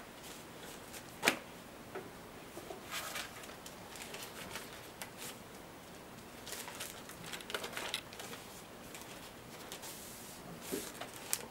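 A comic book being handled and slid out of its black sleeve: rustling and crinkling of paper and sleeve in several short bouts, with one sharp tap about a second in.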